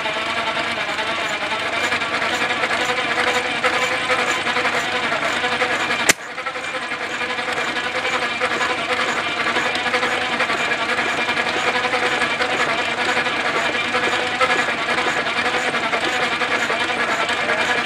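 Old 1.5 hp Sattley hit-and-miss engine being spun over by a V-belt from a Farmall tractor in an attempt to start it: a steady, fast mechanical clatter of the running belt drive and engine. A single sharp click about six seconds in. The engine will only run in short bursts, which the owner puts down to a bad condenser.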